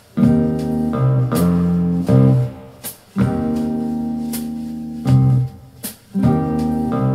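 A song played through a pair of KRK Rokit 5 RP5 G3 studio monitors and picked up by a recorder's microphone: slow guitar and keyboard chords with a sharp cymbal-like hit about once a second, no singing.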